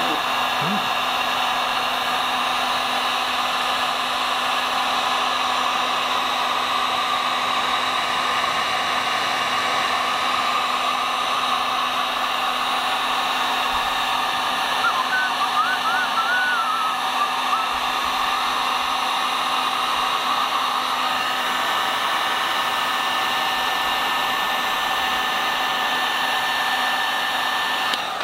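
Handheld electric heat gun blowing steadily, a fan-and-heating-element whine held at one pitch, aimed at the cooling-fan wiring to shrink tubing over the connections.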